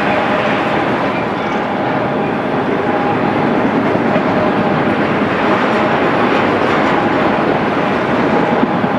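Autorack cars of a long freight train rolling steadily past, wheels running on the rails.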